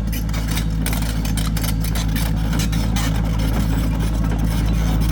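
A large engine running steadily at an even, low speed, with a deep, constant hum.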